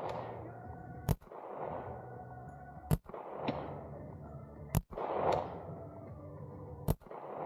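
Four shots from a heavy-calibre gun, about two seconds apart, each followed by a long echo. After some of them a fainter crack comes about half a second later: the bullet striking the distant target.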